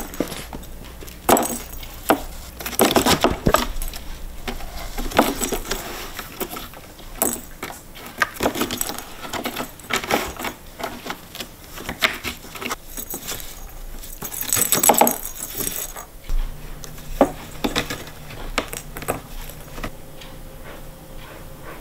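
Cats playing at a scratcher-and-ball toy: irregular scratching and rustling with sharp clicks and rattles as the ball is knocked in its track, busiest through the first two-thirds and calming near the end.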